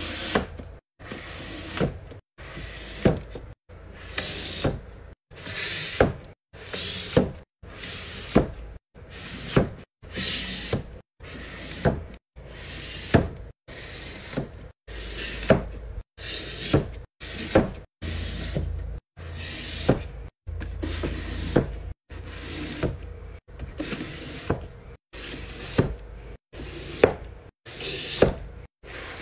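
Hardcover books being set down one at a time on a bookshelf: a string of sharp knocks, about one a second, each clipped short by an abrupt cut to silence.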